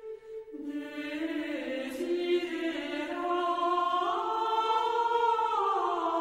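Background music of a choir chanting: several voices hold long notes together, stepping up in pitch about two-thirds of the way through and falling back near the end.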